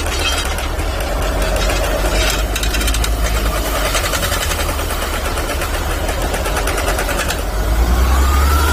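The Cummins diesel engine of a 2004 Soosan (Junjin) SD1000 crawler drill rig running steadily. Near the end a whine rises in pitch and the engine gets louder.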